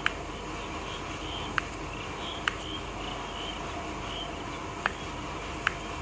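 Kitchen knife slicing pork balls on a wooden cutting board: the blade taps sharply on the board five times at uneven intervals, over a steady background hiss.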